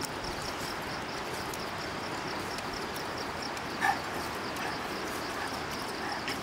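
Insects chirping in a steady, evenly pulsing high trill over a soft outdoor hiss, with one brief high cry about four seconds in.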